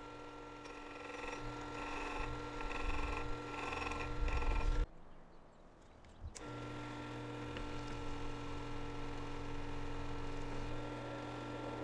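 Steel chisel back rubbed on a sharpening stone in regular strokes about twice a second, under a steady electrical hum. The sound drops out abruptly about five seconds in and comes back with a click about a second and a half later, after which only the hum remains.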